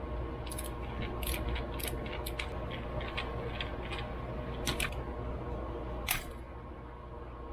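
Small metal carburetor parts clicking and tapping by hand as a spring-loaded piece is worked off a Motorcraft 2150 carburetor: scattered sharp clicks over a steady low hum.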